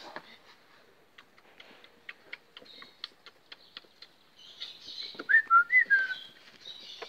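Presa Canario puppies play-fighting: a quick run of short, high squeals about five seconds in, after a scatter of faint ticks.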